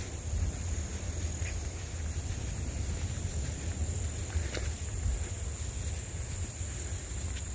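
Insects chirring in a steady high drone, over a continuous low rumble on the microphone, with a few light clicks, one clearer about four and a half seconds in.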